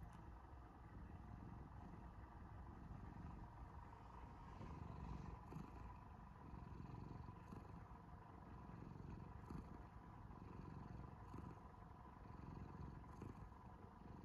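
Cat purring softly, a low rumble that swells and eases with its breathing.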